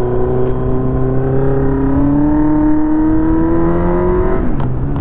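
Motorcycle engine accelerating hard in one gear, its pitch rising steadily, then falling suddenly at an upshift about four and a half seconds in.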